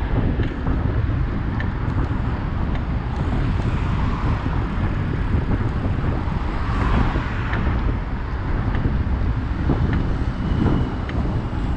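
Wind rumbling on a GoPro's microphone on a moving bicycle, mixed with traffic noise from cars on the road alongside; the traffic swells briefly about seven seconds in.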